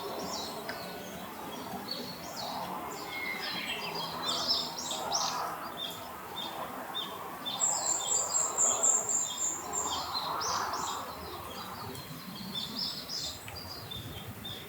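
Several small birds chirping and calling over a steady background hum. About halfway through, one bird gives a quick run of very high repeated notes lasting about two seconds.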